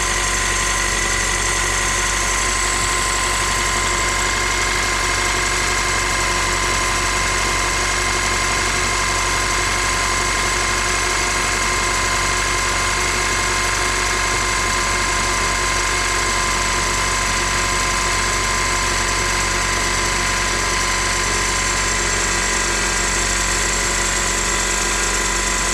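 A 1999 Toyota Camry's 2.2-litre four-cylinder engine idling steadily, heard from underneath close to the front of the engine: an even mechanical whirr with a steady high whine over it.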